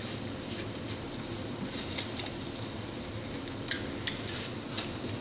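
A few scattered light clicks and taps of eating at a table, over a low steady room noise.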